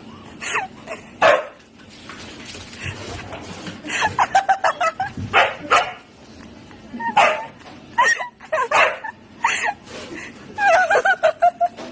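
A dog barking in short bursts, with quick runs of yaps about four seconds in and again near the end.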